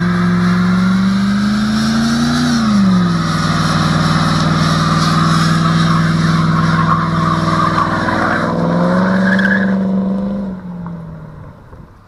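Car engine held at high revs during a burnout, rear tyres spinning and squealing on concrete. The revs dip about two and a half seconds in, hold steady, climb again near the end, then the engine and squeal die away.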